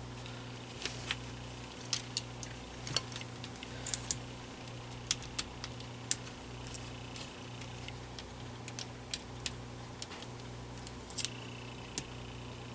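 Scattered light clicks and taps of small plastic fan parts being handled and fitted, a dozen or more at irregular intervals, over a steady low electrical hum.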